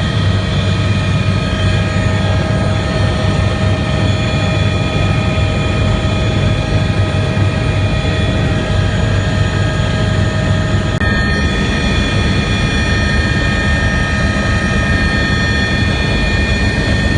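Medical helicopter in flight, heard from inside the cabin: loud, steady rotor and turbine noise, with a low throb and several steady whining tones above it.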